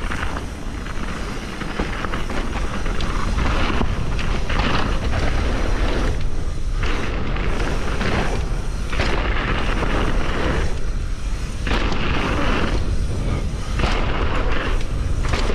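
Wind rushing over a chest-mounted action camera's microphone, mixed with mountain bike tyres rumbling over a dirt trail at speed. The noise is steady and loud and drops briefly about four times.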